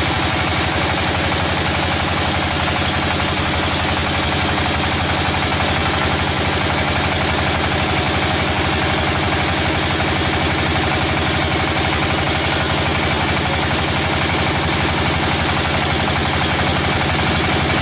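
A machine's engine running steadily at an even speed, with no change in pitch or loudness.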